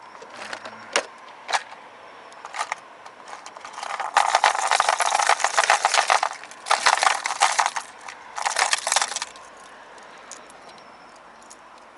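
Fishing tackle clicking and clattering as it is rummaged through: a few single clicks, then three bursts of rapid metallic and plastic rattling in the middle.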